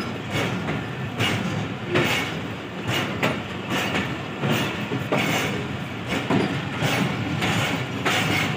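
Passenger train's wheels running over the track at low speed, heard on board: a steady rumble with repeated clacks.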